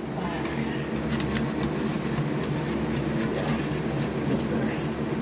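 Trowel scraping over a wet sand-and-cement deck mud bed as it is floated to a slope, a continuous run of short overlapping strokes.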